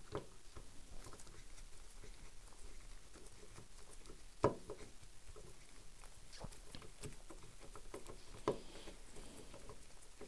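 Quiet handling noises from gloved hands working on a lever-action rifle's receiver during disassembly: faint rustling with scattered small clicks and taps, the sharpest about four and a half seconds in.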